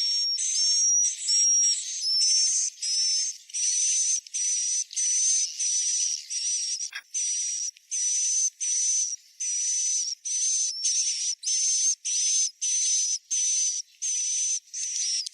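Swiftlet roosting-call lure sound: a steady string of short, high-pitched, hissy chirps with a whistle-like tone, about two a second. A single brief click comes about halfway through.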